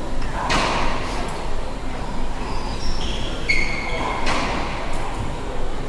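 Racquetball play in a hard, echoing court: two sharp ball smacks, about half a second in and again about four seconds in, with brief high squeaks between them, over a steady low hum.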